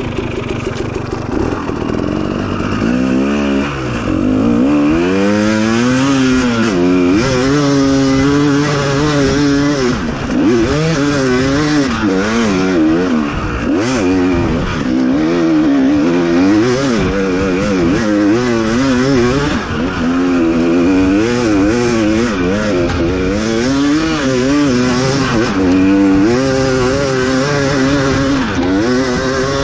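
Off-road dirt bike engine ridden hard over rough ground: the pitch climbs and drops again and again as the throttle is opened and rolled off, with gear changes between.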